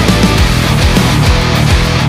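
Loud rock music with a fast, driving drum beat.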